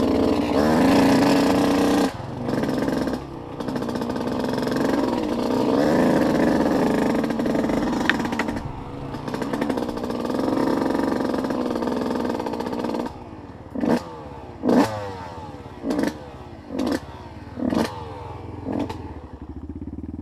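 Off-road vehicle engine running under changing throttle, then, from about two-thirds of the way through, a string of about six short throttle blips, each revving up and falling away.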